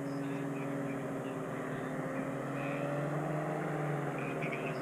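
A powered parachute's propeller engine running with a steady drone, its pitch wavering slightly.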